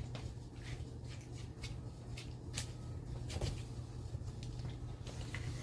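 Spatula stirring pasta, sausage and soup in a plastic Tupperware microwave pressure cooker: soft irregular scrapes and clicks.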